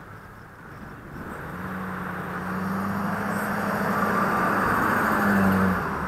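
Pickup truck driving past: engine and tyre noise growing steadily louder for several seconds, loudest just before it passes, then dropping off suddenly near the end.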